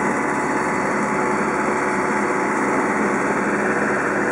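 Sailboat's engine running steadily, under an even rushing noise, as the boat motors into short, choppy seas.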